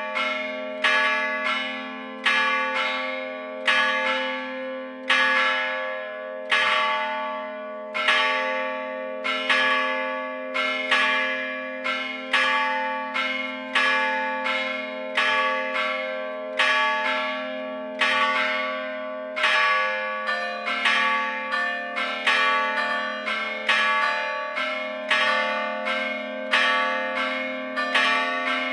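Church bells from a Gescher foundry, struck by hammers rather than swung, sounding one stroke after another with each tone ringing on. Bells I and II ring together, and bell III joins about two-thirds of the way through.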